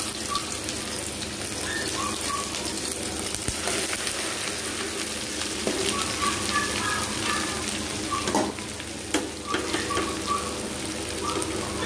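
Chopped okra sizzling and crackling in hot mustard oil in a wok, just tipped in.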